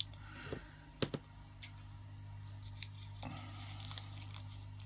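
Small plastic craft pieces being handled: faint rustling and tearing with a few light clicks in the first second or so, over a steady low hum.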